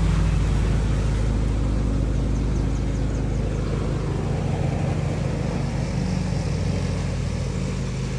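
An engine running steadily with an even low hum that eases off slightly in level, and a few faint high chirps about three seconds in.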